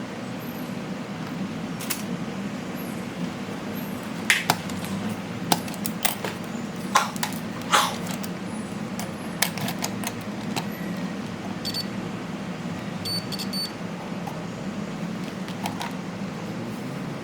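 Scattered sharp clicks and taps of small repair tools and parts over a steady low hum, with a few short high beeps about three-quarters of the way through.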